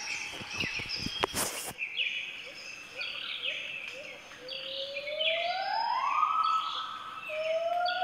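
Gibbon calling: a long, smooth rising whoop about halfway through, then two shorter rising, held notes near the end, over repeated short falling bird chirps. A few sharp clicks in the first couple of seconds.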